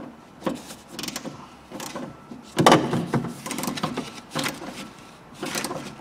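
Socket ratchet being worked to run a nut onto the door handle's mounting stud inside a car door: a series of short metallic clicks and rasps, the loudest about two and a half seconds in.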